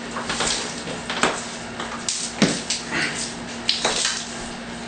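Irregular knocks, taps and scrapes of a rigid Onyx shower wall panel being handled and pressed into place against the wall and base.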